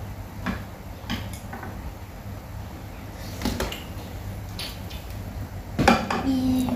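Scattered clinks and knocks of chopsticks and spoons against bowls and plates at a meal, with a louder cluster of knocks about six seconds in.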